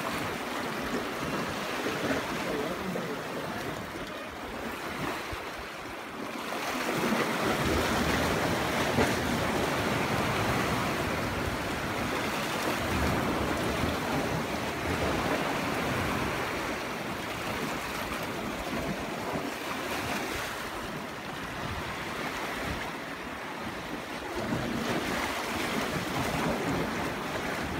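Small sea waves washing and breaking against jetty rocks, a steady rush of surf that grows louder about seven seconds in.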